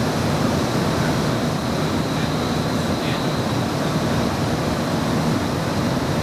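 Inekon low-floor streetcar running, heard from inside the car as it moves off from a stop: a steady rumble with a faint high whine above it.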